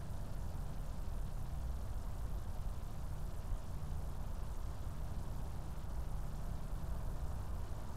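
Steady low rumble with a faint hiss, unchanging throughout.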